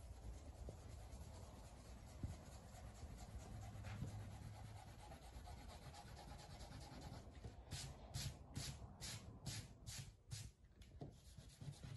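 A soft drawing stick scribbling on paper, faint. Partway through it goes into a quick, even run of back-and-forth strokes, about three a second, for a couple of seconds.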